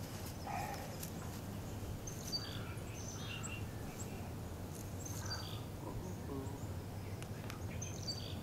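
Birds chirping in short, scattered calls over a steady low background hum, with a few faint clicks.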